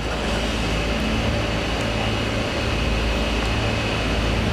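Steady low mechanical hum with a faint hiss over it, unchanging throughout.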